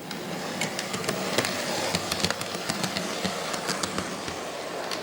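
ScaleTrains Rivet Counter Dash 9 model locomotive running along the track past the camera: a steady whir from its motor and gearing, with irregular sharp clicks from the wheels on the rails. The sound swells in at the start as it comes close.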